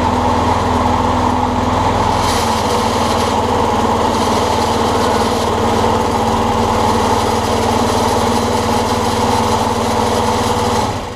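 Craftsman 6.5 hp push mower's single-cylinder engine running steadily, started up to test the repaired throttle kill switch. The sound falls away near the end.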